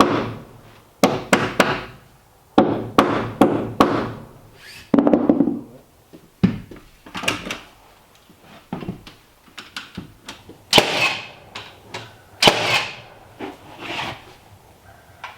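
Hammer blows on wood, coming in quick runs of two or three strikes, then scattered knocks and clatters.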